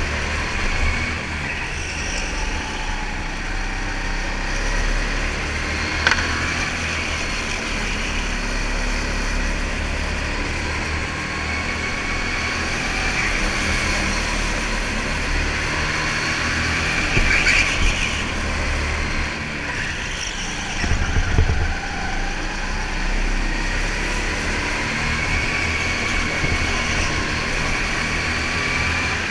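Onboard kart engine running hard through a lap, its pitch rising and falling as the driver works the throttle through corners and straights. A sharp knock about six seconds in.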